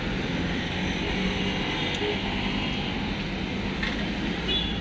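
Steady road traffic noise from cars and auto-rickshaws running along the road, an even low rumble and hiss without a break.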